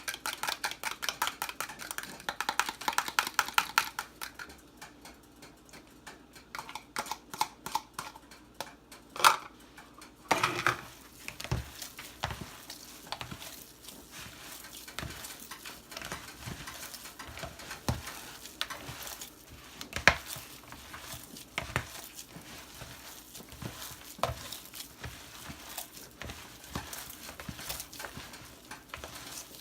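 Metal utensil clinking against a bowl in fast, even stirring strokes for the first few seconds and again briefly a little later. After that come a couple of louder knocks and then slower, scattered taps and scrapes as the mixing goes on.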